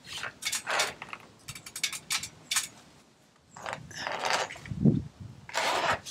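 Irregular rattling, clicking and scraping as a refrigerant line set in flexible conduit is handled and fed up an exterior wall from a ladder, in short bursts with a brief lull about three seconds in and the loudest scrape near the end.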